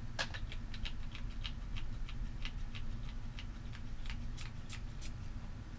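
A run of small, irregular clicks and taps, a few a second, from handling a plastic cosmetic spray bottle and its packaging, over a steady low room hum.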